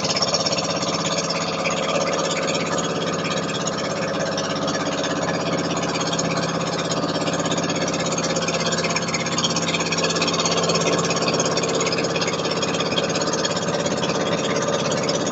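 Engine of a motorized outrigger boat (bangka) running steadily under way: an even drone with a steady hiss over it.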